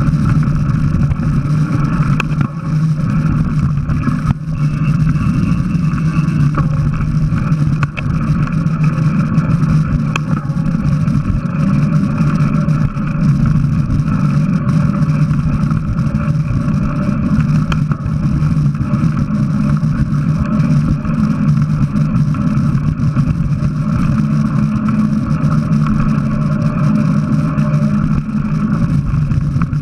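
Steady rushing and rumbling of a mountain bike ride picked up by an action camera: wind on the microphone and tyres rolling over a dirt singletrack, with scattered knocks from bumps in the trail.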